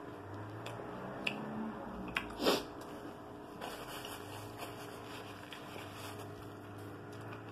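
Quiet chewing of a dark chocolate square with crunchy salt and coffee bits, with a few faint clicks and one short rustle of a paper napkin about two and a half seconds in, over a low steady hum.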